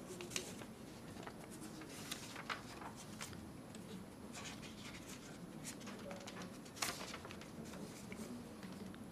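Quiet room tone with faint, scattered clicks and rustles, the sharpest a little under seven seconds in.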